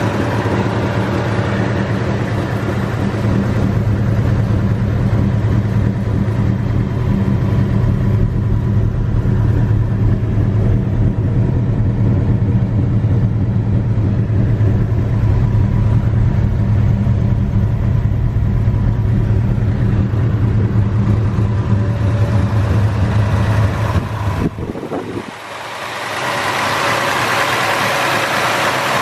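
Chevelle's 454 big-block V8 idling steadily with a deep, even exhaust note. About 24 seconds in, the sound changes abruptly: the low note drops away and a lighter, hissy engine sound takes over.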